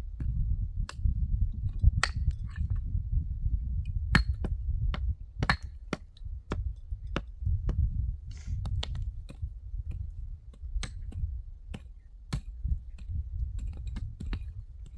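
Irregular sharp knocks and clicks, roughly one a second, over a steady low rumble.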